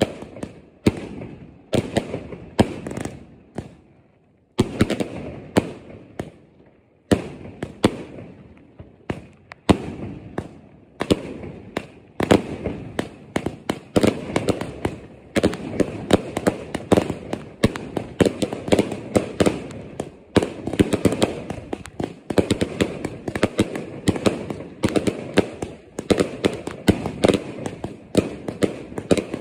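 Consumer firework cakes firing aerial shots: a run of sharp bangs, sparse with short pauses in the first several seconds, then a dense, almost continuous barrage of bursts from about twelve seconds in.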